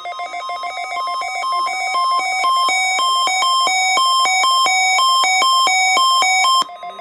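Electronic melody of buzzy beeping tones. It opens with rapid repeated pulses, then steps up and down between a few pitches, and cuts off abruptly near the end.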